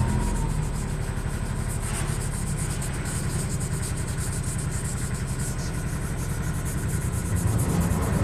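400-grit sandpaper rubbed rapidly back and forth along a steel sword blade's edge, sharpening it, over a steady low hum.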